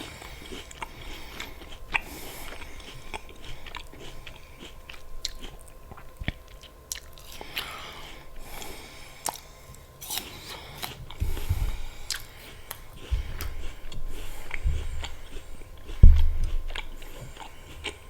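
Close-miked chewing of crisp apple with peanut butter: irregular sharp crunches and wet mouth sounds, with a few low thumps in the second half, the loudest about two seconds before the end.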